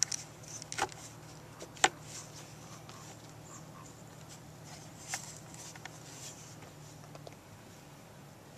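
Scattered small clicks and light knocks of hand-work with a screwdriver on the plastic headlight housing of an ATC, the sharpest about two seconds in, over a faint steady low hum.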